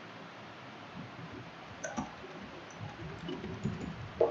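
A few faint computer mouse clicks, the clearest about two seconds in and just before the end, over quiet room noise.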